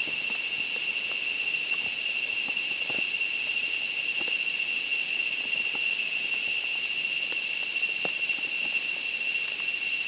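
Insects droning in a steady, high-pitched chorus, with faint scattered ticks.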